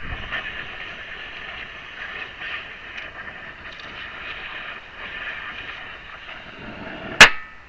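Oxy-fuel torch flame hissing steadily as it heats a seized CV axle nut, then one sharp, loud pop near the end.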